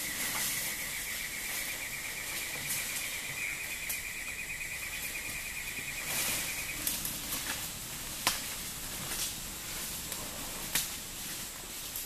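An insect buzzes in one steady high tone over rainforest ambience and stops about seven seconds in. A few sharp snaps follow, from twigs and leaf litter cracking under the feet of the passing Bornean pygmy elephants.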